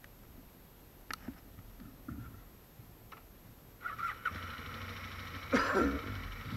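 A few faint clicks, then about four seconds in the Aprilia RSV 1000 R's 60-degree V-twin is started and settles into a steady idle, with a brief louder burst about a second and a half later.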